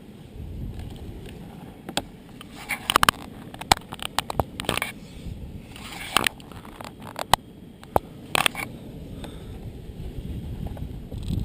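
Irregular sharp clicks, knocks and scrapes close to the microphone over a low wind rumble, the kind of noise made by handling a camera or mount.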